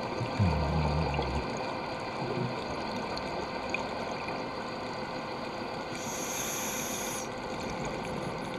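Steady underwater hiss heard through a camera's waterproof housing, with scuba regulator breathing: a low exhale burble about half a second in and a short high inhale hiss about six seconds in.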